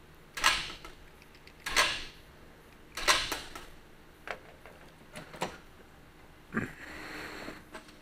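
Hand-tool work on the bolts of a Farmall H engine: three sharp clacks about a second and a half apart, then a few lighter clicks, and near the end a clack followed by a short scraping rustle.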